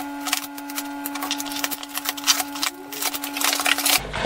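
Cardboard packaging handled as a box is opened and an inner cardboard box is lifted out: a busy run of scrapes, rustles and taps. Under it runs a steady hum that cuts off abruptly just before the end.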